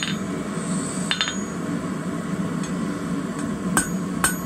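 Hand hammer striking red-hot rebar on a steel anvil: a few spaced-out ringing blows, with the sharpest two near the end, over a steady low hum.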